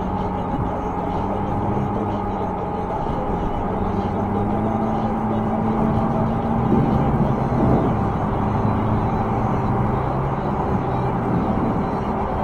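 Steady rumble of highway traffic mixed with wind and tyre noise from a moving e-bike, with low engine tones that shift as vehicles pass.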